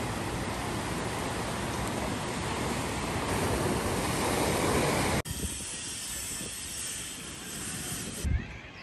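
Small waves washing up on a sandy beach, with wind rushing on the microphone. About five seconds in it cuts off suddenly to a quieter steady outdoor hiss.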